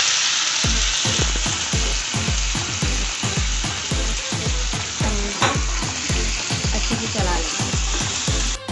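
Chopped tomatoes frying in hot ghee in a frying pan, giving a steady sizzle, with a wooden spatula stirring them. Background music with a steady beat plays underneath.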